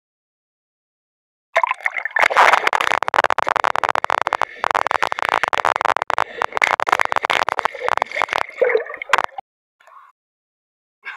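Sea water gurgling and sloshing over the camera's microphone as it dips under the surface: a loud, dense crackle of bubbling that starts about a second and a half in and breaks off about two seconds before the end.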